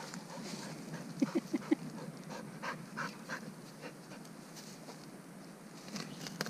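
Golden retriever panting as it digs with its nose and paws in soil and dry bamboo leaves, with irregular scratching and rustling throughout. About a second in there are four quick short squeaks.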